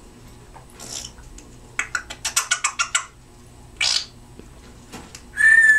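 Timneh African grey parrot mimicking an explosion sound effect: a short hiss, a quick run of crackling pops, another hiss, then a clear whistle near the end that slides downward in pitch.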